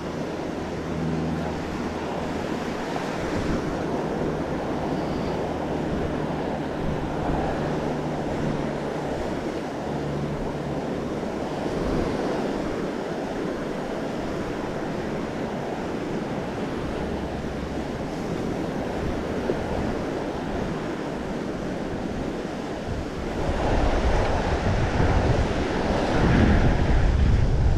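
Ocean surf washing onto the beach with wind buffeting the microphone; the low wind rumble grows louder near the end.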